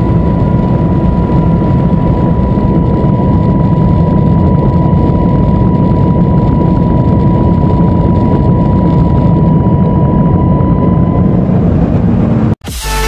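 Deep, steady rush of wind, tyre and engine noise inside a Porsche 911 running at over 300 km/h, with a thin steady whine over it that fades out near the end. It cuts off abruptly just before the end, and electronic music starts.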